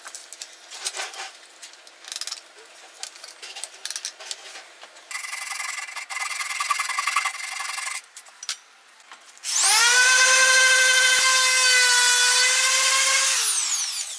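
Wood pieces knocked and handled, then a scratchy rubbing on wood for a few seconds. About two-thirds of the way in, a small electric power tool's motor starts, runs steadily at high speed for about four seconds, and winds down in pitch as it is switched off.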